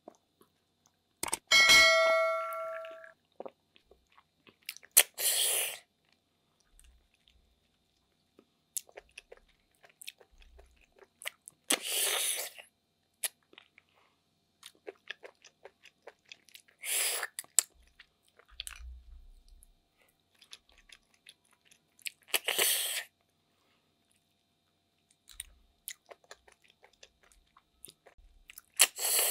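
A glass of iced water is set down with a ringing clink about two seconds in. Then comes a loud, short slurp about every five to six seconds as snails in coconut sauce are sucked out of their shells, with soft chewing and small clicks of shell between the slurps.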